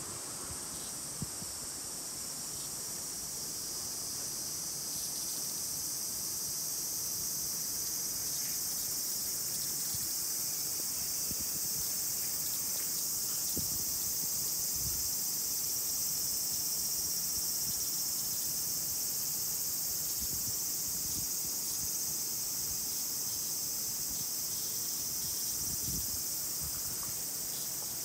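Cicadas singing in chorus: a steady, high-pitched shrill drone that swells a little about four seconds in.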